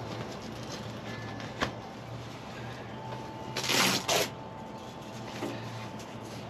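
Two short rasping rips about three and a half seconds in, the first longer, from a Velcro tab on a plastic UTV rear windshield being pulled apart, over a faint steady hum.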